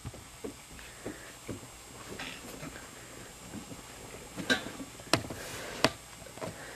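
Scuffling and soft knocks of people wrestling on a carpeted floor, with three sharper knocks in the second half.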